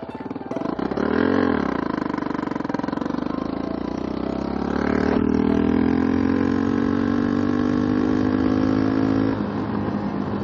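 Suzuki DR-Z400S single-cylinder motorcycle engine revving briefly about a second in, then pulling with a steadily rising pitch for about four seconds before dropping off near the end.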